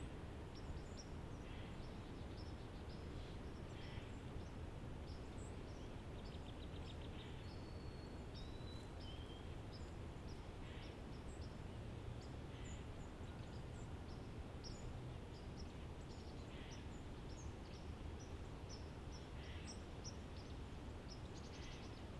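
Quiet woodland ambience: small birds chirping and twittering on and off throughout, with one quick trill about seven seconds in, over a low steady background rumble.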